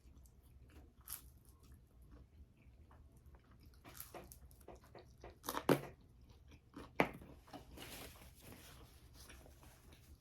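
A person chewing and biting food close to the microphone, with scattered crunches and two sharper crunching bites a little past halfway.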